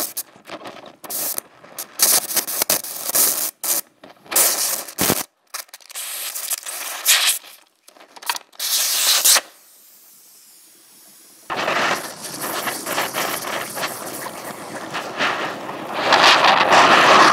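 Oxyhydrogen (HHO) torch flame hissing, in short bursts that start and stop abruptly, then a steady hiss that swells louder near the end.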